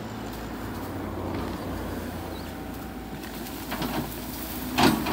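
Sumitomo SH130 excavator's diesel engine running steadily as the bucket pushes over a small tree, with a smaller crack and then a loud sharp crack of breaking wood near the end.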